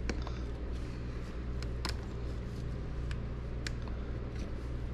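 Light clicks and taps of a car's power antenna motor housing and small parts being handled by hand, a few sharp clicks with the loudest about two seconds in, over a steady low hum.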